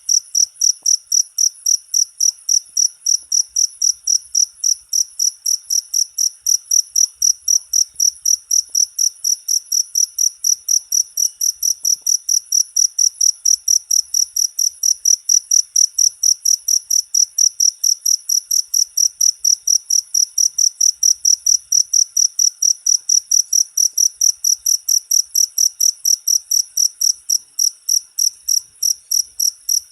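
Cricket chirping loudly and steadily, a shrill chirp repeated about three times a second, with a brief break near the end.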